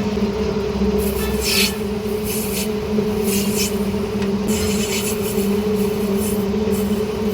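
Metal lathe running with a steady motor hum, with irregular scraping as metal is worked against the spinning workpiece.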